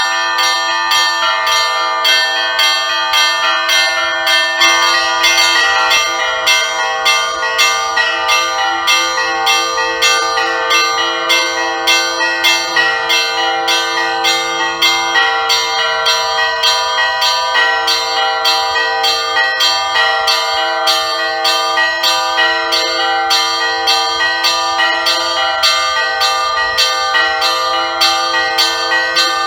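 Russian Orthodox church bells rung in the Easter peal: small bells struck in a quick, steady rhythm over the sustained ring of larger bells.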